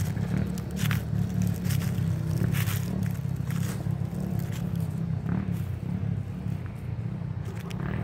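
Footsteps crunching through dry fallen leaves, about one step a second, over a steady low rumble.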